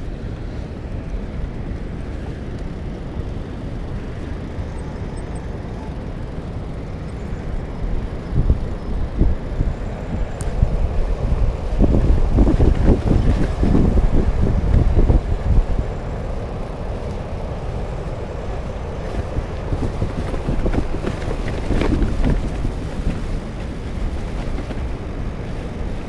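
Wind rumbling and buffeting on the microphone of a camera riding along on a fat bike, a steady low noise that gusts louder and more unevenly for several seconds midway and briefly again near the end.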